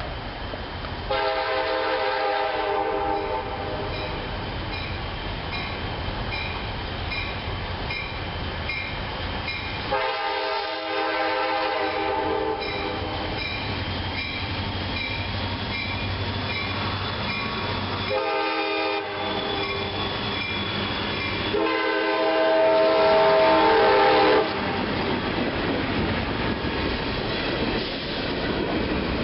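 Locomotive multi-chime air horn sounding two long blasts, a short one and a final long one, the standard grade-crossing signal of an approaching train. Between the blasts a high ding repeats about once a second, and after the last blast the rumble of the passing train grows.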